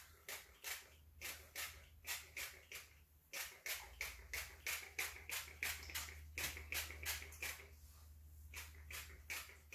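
Spray bottle of leave-in conditioner squirted over and over onto hair, short hissing sprays about two to three a second, with a brief pause twice.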